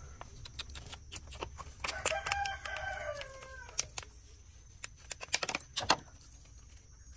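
A rooster crows once, about two seconds in, a call of about a second and a half that drops in pitch at the end. Sharp clicks and crackles are scattered throughout, the loudest a cluster about five to six seconds in.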